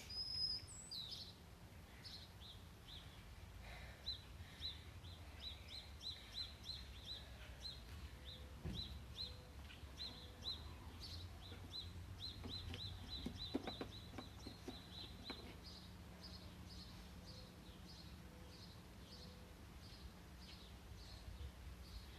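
A bird chirping over and over, two or three short high chirps a second, over a low steady hum. The chirps grow fainter after about fifteen seconds.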